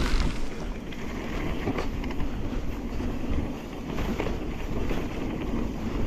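Mountain bike riding a rough, sandy trail: steady tyre rumble and wind on the microphone, with scattered knocks and rattles from the bike.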